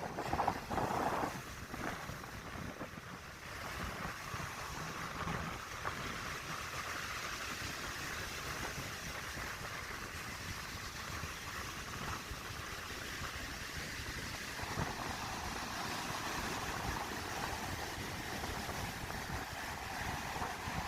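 Strong wind blowing over the microphone, with sea surf breaking on the shore, heard as a steady rushing noise that grows a little brighter about two-thirds of the way through.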